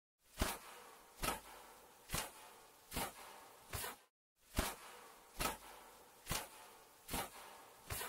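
Sound effect of large wings flapping, a steady rhythm of whooshy flaps a little under one per second, each fading out quickly. There is a short silent break about four seconds in, where the loop restarts.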